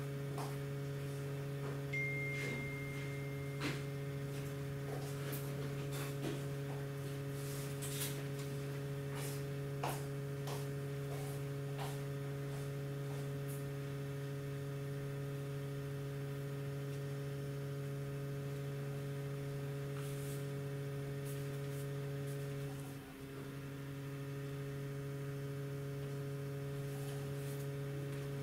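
Steady low electrical hum throughout, with scattered light clicks and taps in the first half and a brief steady high tone about two seconds in.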